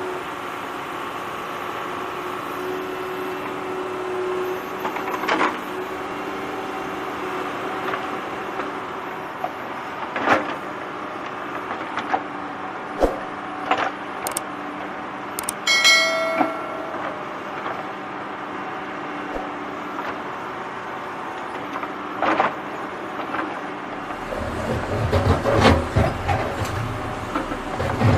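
JCB 3DX backhoe loader's diesel engine running steadily while the backhoe digs and dumps soil, with scattered knocks and clanks from the bucket and arm and a brief high squeal about halfway. Near the end the engine works harder under digging load, with a deep rumble and loud surges.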